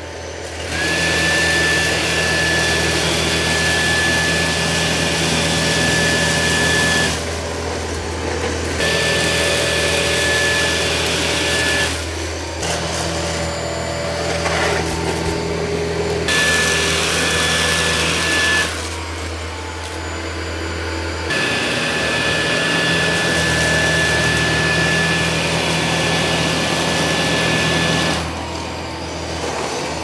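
Dyson 360 Vis Nav robot vacuum running across a hard floor in auto mode, which ramps up suction when it senses heavy dirt. Its motor gives a steady high-pitched whine over a low hum. The whine drops out and the level dips several times for a second or two before coming back.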